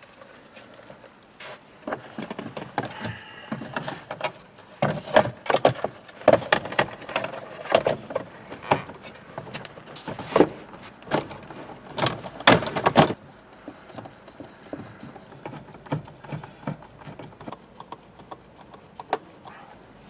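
A car's plastic HVAC blower motor housing being worked back up into place under the dashboard: a dense run of knocks, clicks and rattles for the first dozen seconds or so, then only occasional small clicks.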